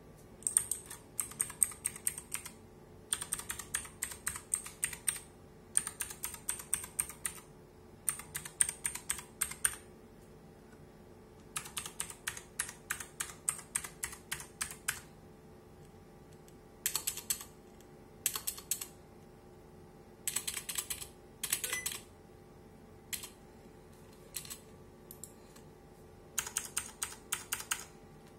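Typing on a mechanical keyboard with Outemu Blue clicky switches: fast runs of sharp key clicks in bursts of a second or two, broken by short pauses.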